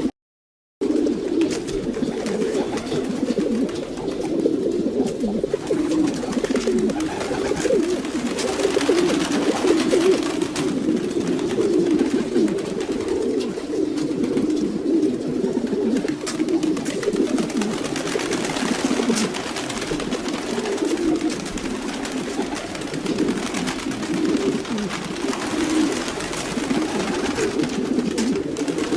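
A flock of domestic pigeons cooing, many low, overlapping coos forming a steady warbling chorus. The audio cuts out completely for about half a second right at the start.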